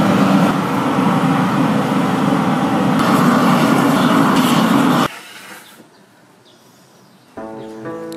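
Gas blowtorch flame hissing steadily as it scorches the wooden gayageum soundboard, cutting off suddenly about five seconds in. After a short quiet gap, plucked-string music begins near the end.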